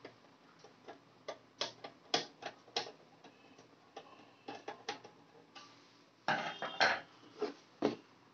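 A screwdriver clicking and ticking on the small screws of a Dahua HDCVI DVR's sheet-metal case as the screws are turned out, in irregular single clicks. Near the end comes a longer scraping rattle as the metal cover is handled.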